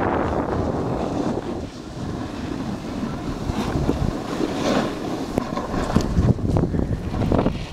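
Wind buffeting the microphone of a camera carried down a snowy slope, mixed with the rough scraping and chatter of sliding over hard-packed snow. It is loudest in the first second or so, and rougher, with many short scrapes, in the second half.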